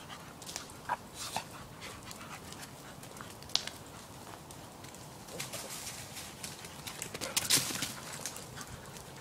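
Dogs running and playing on leaf-strewn dirt: scattered quick paw footfalls and scuffles, busiest about seven to eight seconds in.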